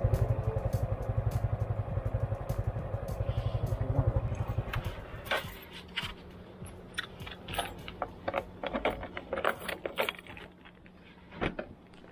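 Idling single-cylinder four-stroke motorcycle engine of a Honda RS125 Fi, a fast even pulse that stops about four and a half seconds in when it is switched off. Scattered light clicks, jangles and crinkles of handling follow.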